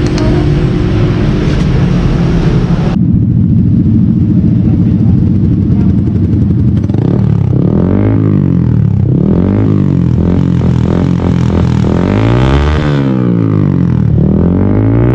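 After a cut about three seconds in, a Yamaha R15's single-cylinder engine runs through a VMAX V25 aftermarket exhaust. It idles and is blipped several times, the pitch rising and falling with each blip. Before the cut there is a steady hum and noise.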